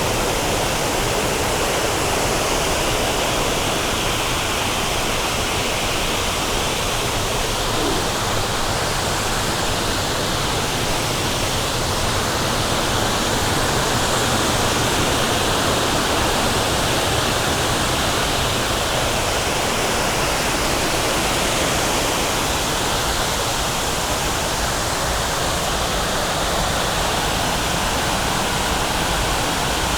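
Waterfall on Brasstown Creek, water pouring and splashing in a loud, steady rush.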